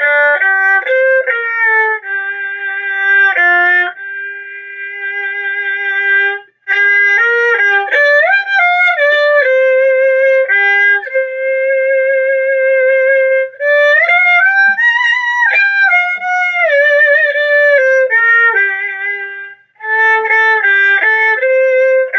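Erhu with a freshly stretched python-skin soundboard, bowed in a melody with vibrato and sliding notes, in several phrases broken by short pauses and climbing highest about halfway through. It is a test of the newly re-skinned instrument's tone, which for a fresh skin is judged not bad.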